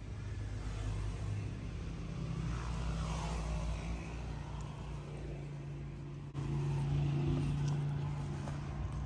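A steady low engine hum, like a motor vehicle running, that steps up abruptly in loudness about six seconds in.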